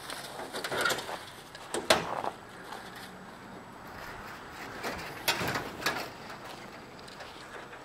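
Slow footsteps crunching on packed snow: a few short scraping crunches about a second apart, the loudest about two seconds in and just after five seconds.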